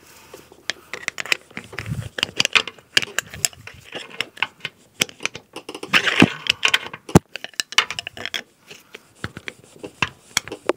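Irregular metal clicks, knocks and rattles as the passenger-side CV axle of a 2003 Toyota Corolla is worked and popped out of its manual transmission, loudest around six to seven seconds in.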